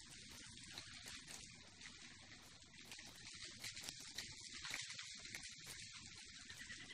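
Faint outdoor ambience: a soft steady hiss with light, irregular ticks scattered through it.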